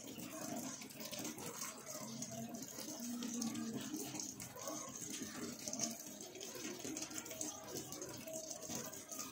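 Outdoor garden ambience: a continuous high-pitched hiss with faint, indistinct voices underneath.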